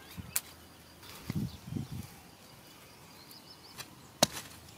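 A garden spade jabbed into hard, compacted soil. There is a sharp strike about half a second in, two dull thuds around a second and a half in, and another sharp strike near the end.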